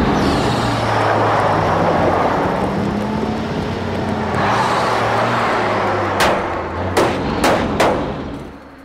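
Cartoon fire truck's engine running hard under a loud rushing noise as it charges, surging again about halfway through. Four sharp knocks follow between about six and eight seconds in, then the sound fades.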